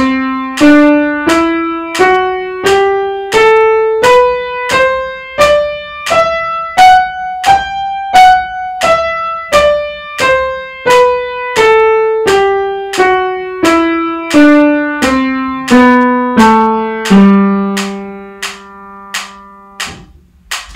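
Piano playing a G major scale one note at a time at a slow, even pace: it climbs to the top G two octaves up, comes back down, and ends on a low G held for about three seconds before it is released.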